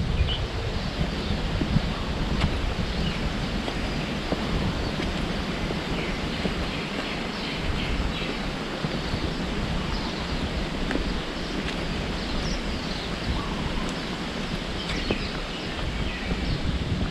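Outdoor forest ambience: a steady hiss with scattered faint bird chirps, and a low wind rumble on the microphone.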